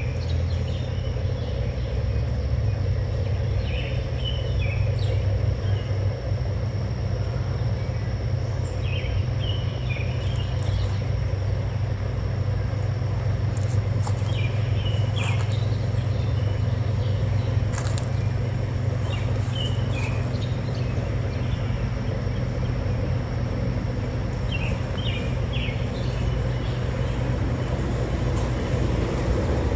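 A steady low rumble, with a bird's short high chirps coming back in little groups every few seconds.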